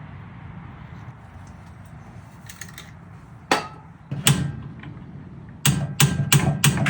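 A steady low hum, then a couple of sharp knocks, and in the last second a quick run of sharp knocks, about three a second.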